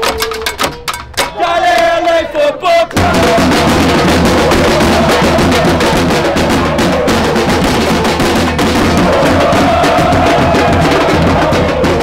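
Fans' drumline of marching snare drums played with sticks. After a few separate hits under chanting voices, all the drums come in together at about three seconds and keep up a loud, dense, steady beat, with voices chanting over it.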